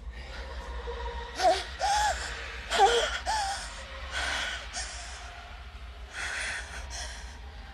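A woman gasping and moaning: four short, high-pitched voiced cries in quick succession, then a run of breathy gasps, over a low steady hum.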